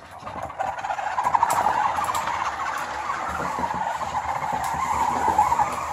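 Spin Master BB-8 toy droid's drive motor whirring steadily as the ball rolls across the floor. The whir builds up over the first half-second.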